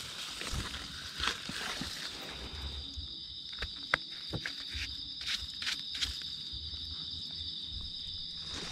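Steady high-pitched drone of insects, two close tones, with scattered crackles and snaps of footsteps and handling in dry leaf litter; one sharp snap about four seconds in.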